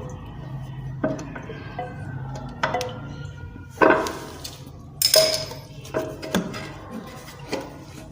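Hard objects clinking and knocking together, about seven sharp strikes each with a short ring; the loudest come about four and five seconds in.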